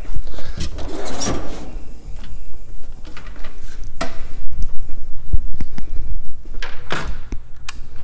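Irregular knocks, clicks and rustling from a person walking about and handling tools and the hand-held camera, with several sharp knocks scattered through.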